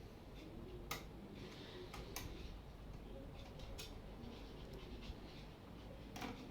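A few faint, sharp clicks and ticks, spaced irregularly over a quiet background, as screws are driven back into a laser printer's casing with a screwdriver.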